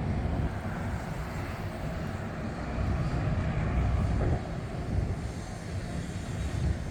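Outdoor street ambience: an uneven low rumble, as of passing traffic and air on the microphone, with no distinct events.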